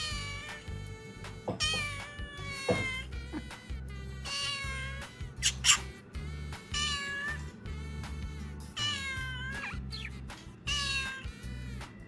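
Domestic cat meowing repeatedly: about six drawn-out meows, a second or two apart, with a brief sharp high cry near the middle, over background music with a steady beat.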